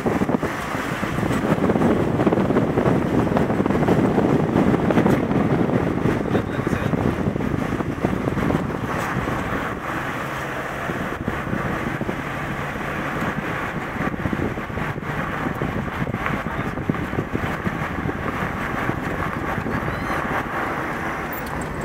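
Vehicle running with wind buffeting the microphone while riding: a steady rumble, louder for the first several seconds and then easing a little.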